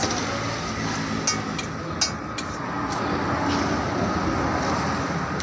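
Steady rumbling street-stall background noise, like passing traffic, with a few sharp clicks about a second and two seconds in.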